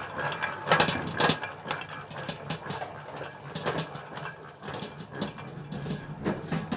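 Bakery dough mixer running: a steady motor hum with irregular knocks as its hook kneads dough around the stainless-steel bowl.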